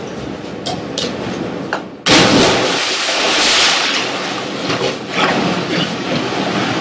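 A person jumping into a swimming pool: a sudden loud splash about two seconds in, followed by a couple of seconds of churning water that settles into a lower wash.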